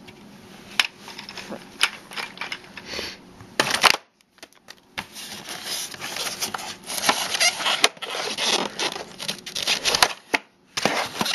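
Plastic packaging crinkling and rustling as parts are handled in a moulded plastic tray and a bagged remote control is lifted out, with many small clicks and knocks. There is a short quiet gap about four seconds in, then busier crinkling.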